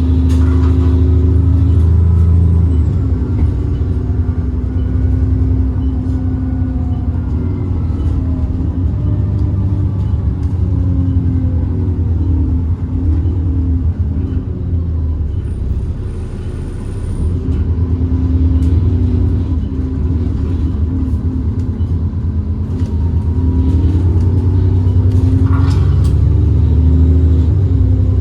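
ADL Enviro 400 double-decker bus's diesel engine running under way, its note rising and falling several times as the bus accelerates and changes gear, with a brief easing off about halfway through.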